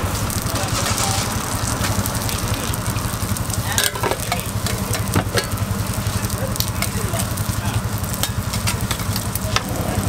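Ramly burger patties sizzling on a steel flat-top griddle, with sharp clicks and scrapes of a metal spatula on the hot plate. A steady, pulsing low engine-like hum runs underneath.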